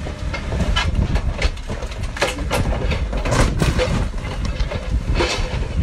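Irregular knocking and clattering over a continuous low rumble as a car is tipped off a telehandler's forks and crashes onto its side against a dry-stone wall.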